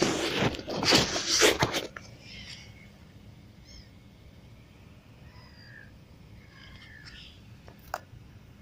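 About two seconds of loud rustling and knocks, then a quiet background with faint short bird chirps every second or two.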